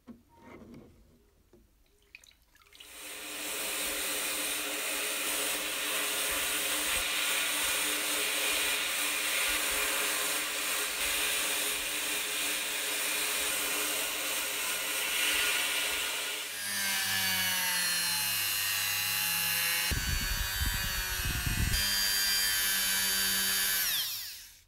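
A sandblasting gun blasting a small tinplate locomotive wheel, a loud steady hiss of air and abrasive for about thirteen seconds. Then a small rotary tool with a polishing wheel runs at a steady pitch, with a few knocks about three-quarters of the way through, and cuts off abruptly near the end.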